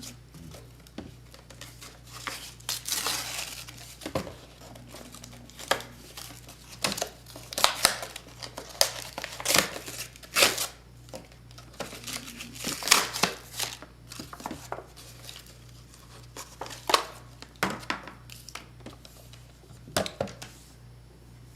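Packaging being opened and handled, with irregular crinkling, rustling and tearing and scattered short clicks and knocks.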